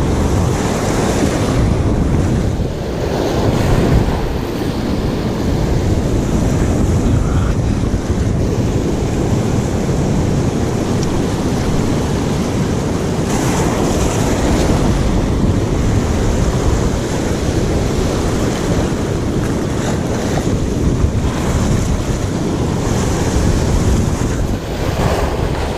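Sea surf washing in, with wind blowing on the microphone: a steady, dense rush of noise.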